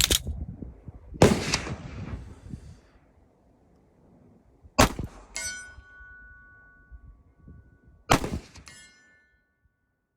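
Four pistol shots fired at a steel IPSC target 100 yards away, each trailing off in echo. About half a second after the third shot a thin metallic ring comes back from the steel plate being hit.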